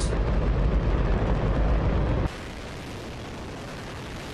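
Hydrogen-oxygen rocket engine test firing: an extremely loud, continuous, deep rumbling noise. About two seconds in it cuts abruptly to a quieter, thinner, hissier rush of the same firing with much less bass.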